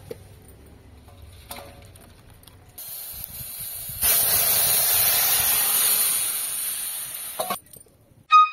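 Shallots and green chillies frying in hot oil in a kadai with a quiet sizzle. About four seconds in, a yellow mango mixture is poured in and the sizzle jumps to a loud, even hiss, which dies away over the next few seconds.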